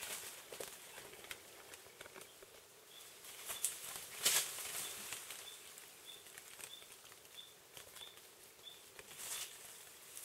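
Rustling and crackling of leaves and branches, with one louder rustle about four seconds in. A faint, short, high chirp from a small bird or insect repeats about every half second through the middle.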